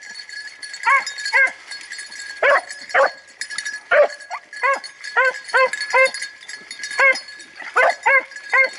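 A pack of beagles baying and yelping as they work a rabbit's scent trail in the brush: short barks from several dogs, sparse at first, then coming about twice a second from about four seconds in.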